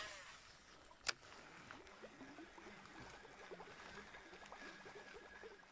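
Faint outdoor ambience close to silence: a sharp click about a second in, then scattered soft ticks and a thin, faint steady tone in the middle.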